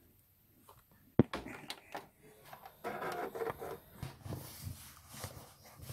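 A sharp knock about a second in, followed by rustling and shuffling handling noise and a few soft low thumps, as of someone moving about and settling in front of the camera.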